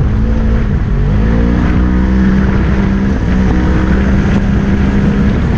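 Polaris RZR XP 1000 UTV's parallel-twin engine running hard at race pace. The revs dip and climb back about a second in, then hold steady, over a heavy rumble.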